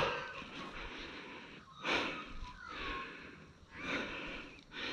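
A person breathing, about one breath every two seconds.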